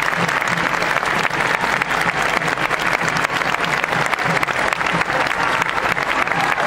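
Large crowd applauding continuously, a dense, steady clatter of many hands clapping.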